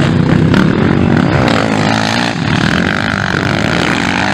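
Motocross bike engines revving on a dirt track, the pitch climbing and dropping as the throttle is worked through the corners.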